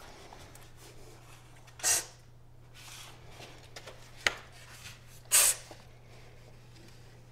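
A steady low electrical hum, broken by two short hissing noises about three and a half seconds apart and a single sharp click between them.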